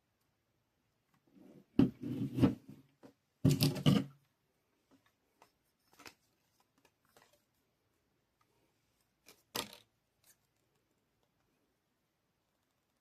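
Sporadic clicks, rustles and knocks of craft materials and tools being handled on a work table, with the loudest clatters about two seconds and three and a half seconds in and another near the ten-second mark.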